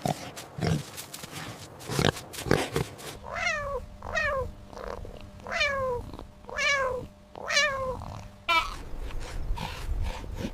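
A domestic cat meowing about six times in a row, each meow falling in pitch, after a few short sharp animal sounds in the first seconds.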